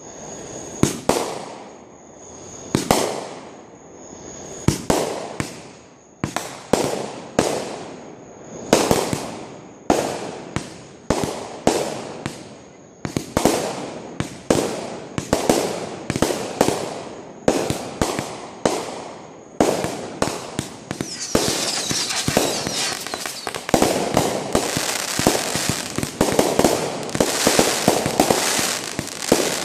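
Fireworks going off in a steady series of sharp bangs, each with a fading echo, at first about one a second and then closer together. About two-thirds of the way in they build into a dense barrage of crackling bursts with bangs throughout.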